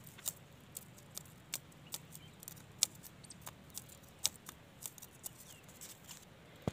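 Faint, irregular small clicks and crackles of dry grass and leaf litter, about one or two a second.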